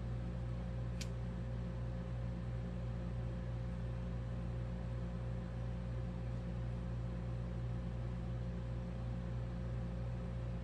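Steady low background hum, with a single sharp click about a second in.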